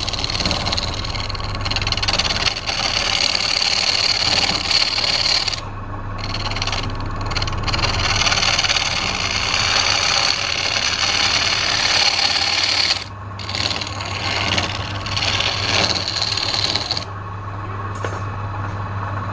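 Woodturning lathe running with a steady motor hum while a tool scrapes against the spinning wood with a rasping hiss. The scraping breaks off briefly about six and thirteen seconds in and eases near the end.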